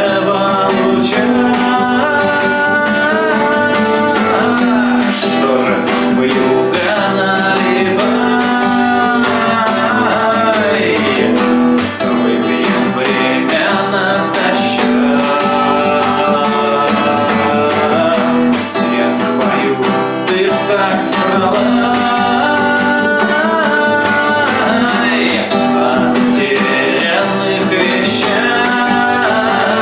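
Acoustic guitar strummed steadily, accompanying a singing voice.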